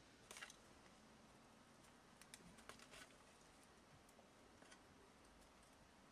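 Near silence: faint background hiss with a few faint, sharp clicks and ticks, a cluster near the start and several more around the middle.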